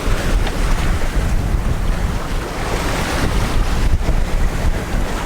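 Heavy wind buffeting the microphone aboard a sailboat under sail, a dense, loud rush with gusty low rumble.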